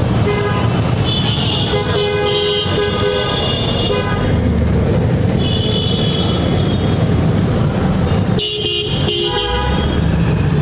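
Street traffic with vehicle horns honking several times, sustained blasts over a steady rumble of passing vehicles.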